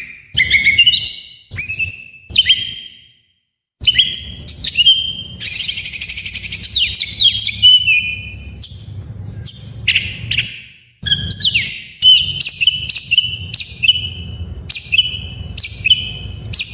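Oriental magpie-robin (kacer) singing a loud, fast string of sharp chirps and whistles in varied repeated phrases, with a buzzy rattling run about six seconds in.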